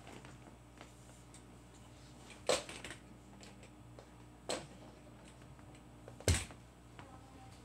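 Three sharp knocks a couple of seconds apart, the last the loudest and deepest, over a faint steady hum.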